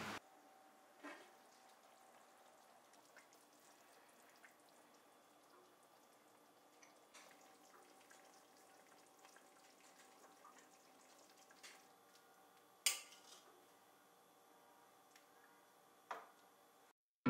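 Near silence: faint room tone with a few soft clicks, the sharpest about thirteen seconds in.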